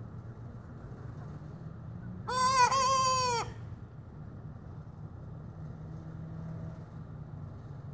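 A young rooster gives one short crow a couple of seconds in, lasting just over a second, level in pitch and then falling away at the end: the unfinished crow of a cockerel still learning to crow.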